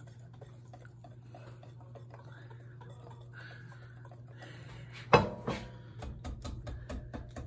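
Wire whisk beating a thick sauce in a glass bowl, over a low steady hum. About five seconds in there is one sharp knock, then a quick run of clicks of the whisk against the glass, about four or five a second.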